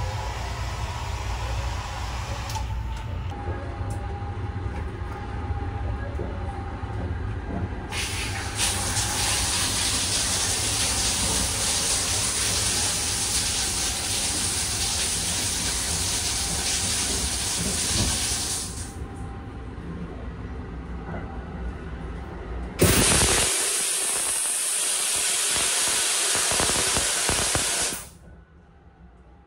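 Shower water spraying in a Sunrise Express sleeper-train shower. The spray runs for about ten seconds, stops, then starts again suddenly and runs about five seconds before cutting off. The train's low running rumble is heard under the first part.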